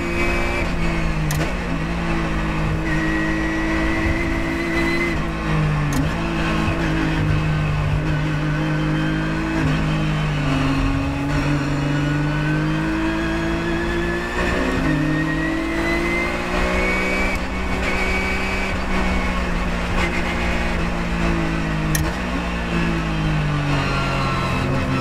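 Porsche 997.1 GT3 Cup race car's flat-six engine under race load, heard from inside the cockpit. Its pitch climbs through each gear and drops sharply at gear changes several times, with braking and downshifts into corners.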